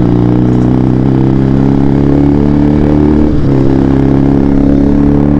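Benelli TNT 300's parallel-twin engine, fitted with an SC Project aftermarket exhaust, running steadily at road speed on the last of its fuel, jerking as it runs dry. The note dips briefly at the start and again about three seconds in.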